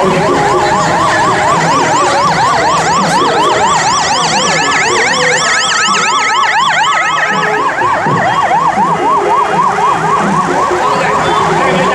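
A motorcade escort siren on yelp, sweeping rapidly up and down about four times a second. A second, higher siren joins for a few seconds in the middle.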